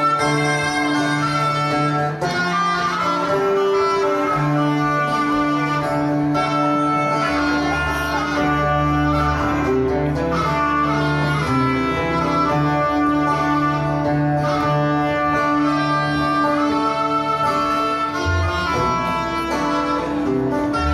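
Live acoustic band playing, with guitar and fiddle holding long notes; a deep bass line comes in about seven seconds in.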